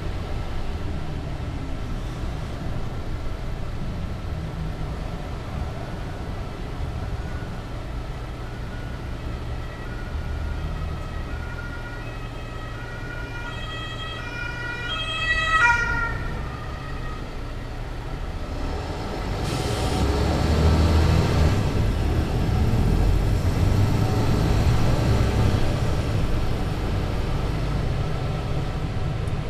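Mercedes-Benz Citaro C2 LE city bus engine running low, with an emergency vehicle's two-tone siren passing about halfway through: its alternating tones climb, peak, then drop sharply in pitch as it goes by. From about two-thirds of the way in, the bus's engine noise grows louder and stays up.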